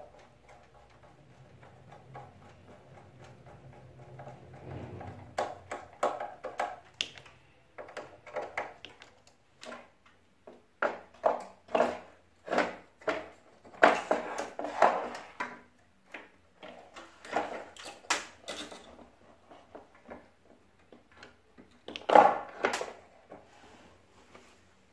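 Irregular clicks, knocks and light rattles of hands working on the plastic parts and wiring of an opened air-conditioner indoor unit, loudest in a cluster around the middle and again near the end.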